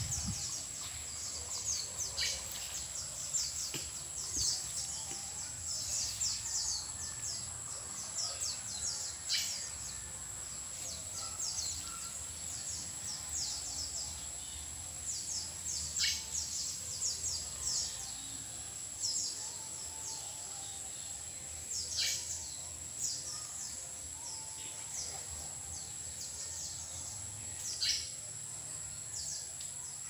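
Many small birds chirping in the trees. A sharp downward-sweeping call comes about every six seconds, over a steady high insect drone.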